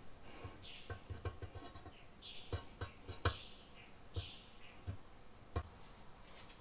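Faint handling sounds of a tube of RTV silicone gasket maker being squeezed out onto an oil pan rim: scattered light clicks and taps, with a few short soft hisses.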